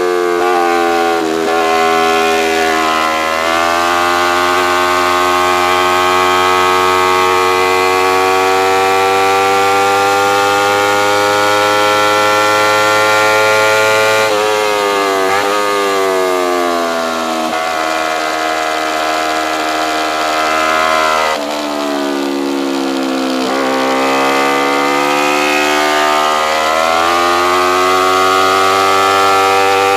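Kawasaki Ninja 250R's parallel-twin engine running hard at high revs under racing load, its pitch climbing steadily through the gears and dropping sharply about halfway through and again about two-thirds of the way in as the rider shuts off and downshifts for corners.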